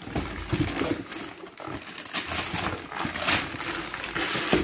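Paper rustling and crinkling with many small clicks and knocks as a cardboard shoebox is handled among torn gift wrapping.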